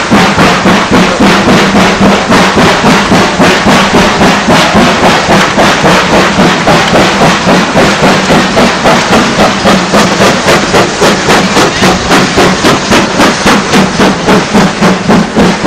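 Steam tank locomotive working hard as it hauls a train of coaches past, its exhaust beating steadily about three times a second.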